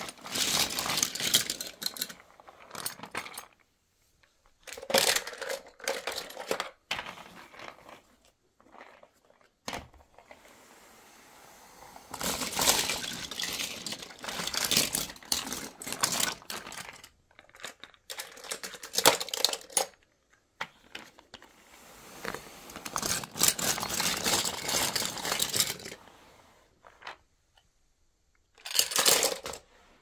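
Small die-cast toy cars clinking and clattering against each other and a plastic toy loader's bucket as it is pushed into the pile and scoops them, in several bursts of a few seconds with short quiet pauses between.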